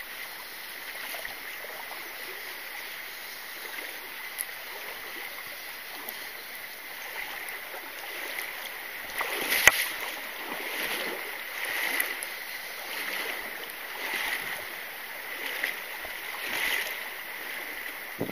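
Running stream water, with a sharp knock a little before halfway and then repeated splashing at the surface, a hooked trout thrashing on the line, until the end.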